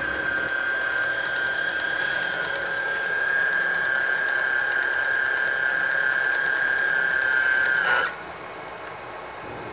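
Wire feed motor of a MultiPro MIG-MMA/TIG 160A-SC welder whining steadily as it pushes 0.8 mm welding wire through the torch cable. It stops suddenly about eight seconds in.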